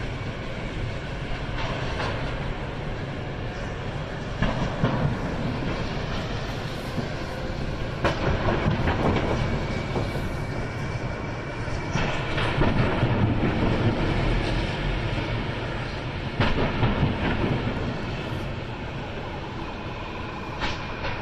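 Steady roar of a large propane fire from an overturned tanker truck, swelling into louder surges every few seconds.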